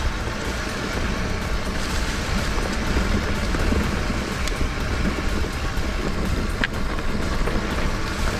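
Mountain bike riding a dirt trail: steady low wind rumble on the microphone mixed with tyre noise, and a few sharp clicks of the bike rattling over the ground.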